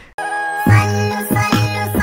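Background music starting suddenly after a brief gap: a bright tune with a heavy bass beat that comes in about half a second later.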